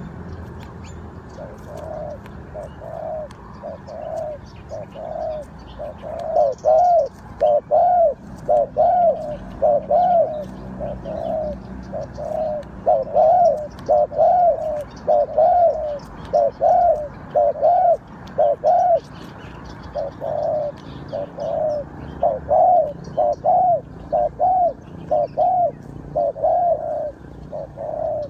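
Spotted dove cooing: a long series of repeated coos, roughly one to two a second in short phrases. The coos are faint at first, grow much louder a few seconds in, and pause briefly past the middle.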